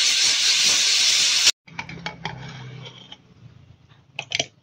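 Aluminium pressure cooker letting off steam through its whistle weight in a loud, steady hiss, the whistle used to time the boiling of the taro corms. The hiss stops suddenly about a second and a half in. Light knocks and scrapes of a knife against the opened aluminium pot follow, with two sharper clinks near the end.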